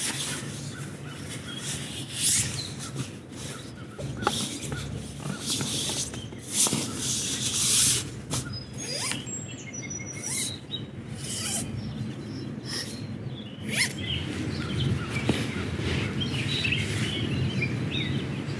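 Outdoor ambience: birds chirping over a steady low rushing noise, broken by scattered clicks and knocks.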